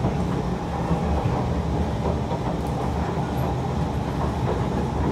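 Kawasaki Heavy Industries & Nippon Sharyo C151 MRT train running steadily at speed, heard from inside the car: a continuous wheel-on-rail rumble, mostly low-pitched.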